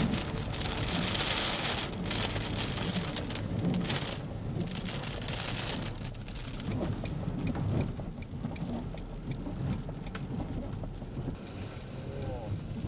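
Thunderstorm: rain pouring down, with thunder rumbling low underneath. The hiss of the rain is loudest in surges over the first six seconds.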